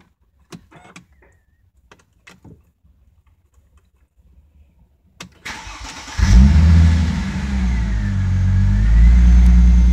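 Mercedes-Benz W211 E-Class engine starting, heard from inside the cabin, through an aftermarket Eisenmann-style exhaust with four 3-inch pipes. A few faint clicks come first. Starter cranking begins about five seconds in, and the engine then catches loudly with a brief flare before settling into a deep, steady idle.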